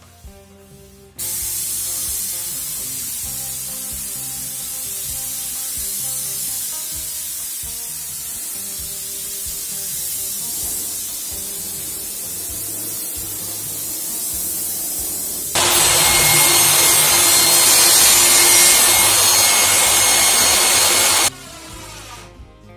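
Spray gun hissing as it sprays a clear glossy finish onto the wooden desk box. The hiss starts suddenly about a second in, gets louder about two-thirds of the way through, and cuts off shortly before the end.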